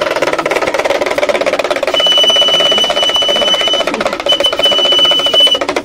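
A small hand drum rattled in a rapid, even roll, as a street magician's damru is played to build up a trick. About two seconds in a steady high whistle joins it, breaks off briefly past the middle, and stops just before the end.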